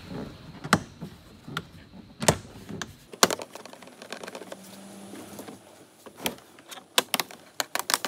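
Trim-panel retaining clips popping loose as the lower B-pillar trim panel of a Toyota RAV4 is pulled off by hand: scattered sharp clicks and snaps, with several in quick succession near the end. The pops are normal, just the tabs coming free.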